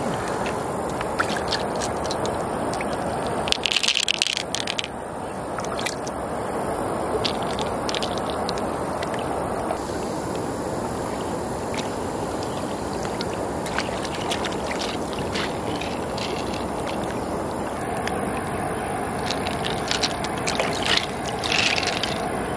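Steady rush of flowing river water, with scattered small clicks and scrapes of pearls and freshwater mussel shells being handled, and a brief louder burst about four seconds in.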